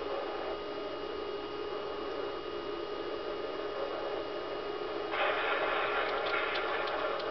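Steady electrical hum and hiss with a few constant tones. About five seconds in a louder rushing hiss sets in, with a few faint clicks near the end.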